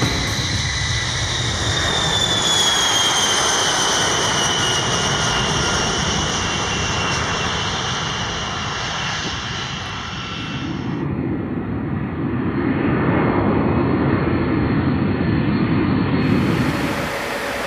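B-52 Stratofortress bomber's eight jet engines at takeoff power as it rolls and climbs out. A high turbine whine falls in pitch over the first few seconds. From about eleven seconds in, deeper, louder engine noise swells.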